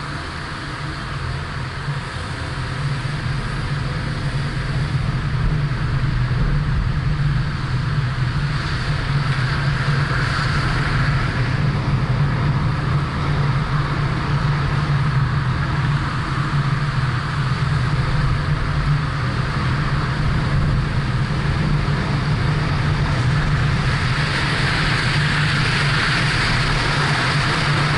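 Car driving: steady engine and tyre noise that grows louder over the first few seconds, then holds level.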